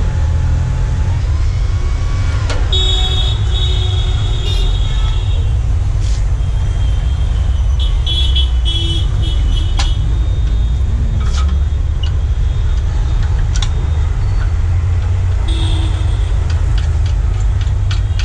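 Steady low rumble of an idling vehicle engine with street traffic, broken by a few passing horn toots and several sharp metal clicks as a spanner works on the tow van's steel underlift arms.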